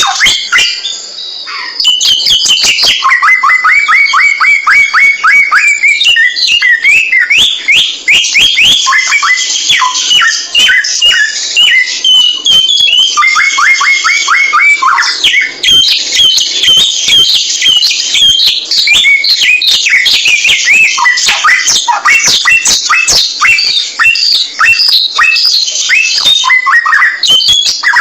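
A samyong songbird singing a loud, almost unbroken song of rapid sliding whistles and chattering phrases, pausing briefly about a second in.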